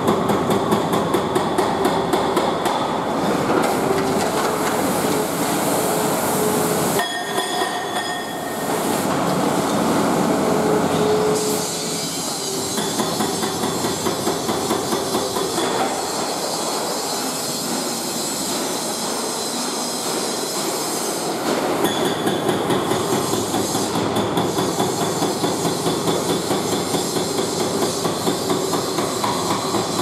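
Hydraulic breaker on a wheeled excavator hammering into a brick wall, a rapid, even run of blows. For a stretch in the middle the blows are less distinct before the steady hammering resumes.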